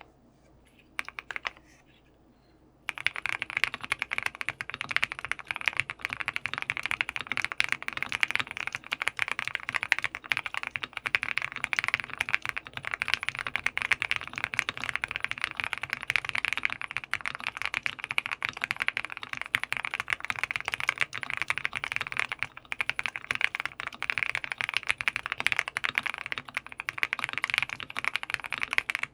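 Fast, continuous typing on a Jelly Epoch mechanical keyboard with a PC plate, lubed TECSEE Tiffany Blue switches and Hammerworks CRP R4 keycaps. A few keystrokes come in the first couple of seconds, then a steady stream of rapid key clacks starts about three seconds in.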